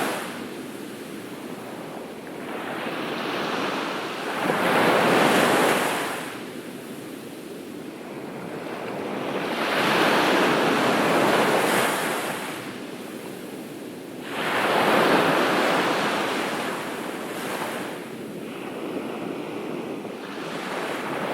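Ocean waves breaking on a beach, each a swelling rush of surf that fades away, arriving about every five seconds.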